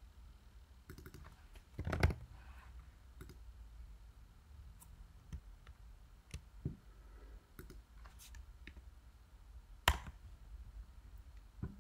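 Computer keyboard typing: scattered faint key clicks, with two sharper, louder clicks about two seconds in and near ten seconds.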